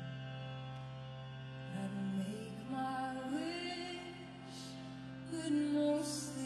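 Recorded show music with a sustained low drone and a slow singing voice, played over an arena sound system. A brief hissing swell near the end is its loudest moment.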